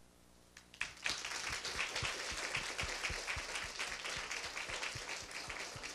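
Audience applauding, starting just under a second in and easing off slightly near the end.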